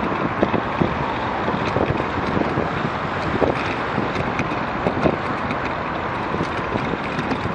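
Wind buffeting the microphone of a camera on a moving bicycle, over the steady noise of road traffic, with a few light knocks scattered through.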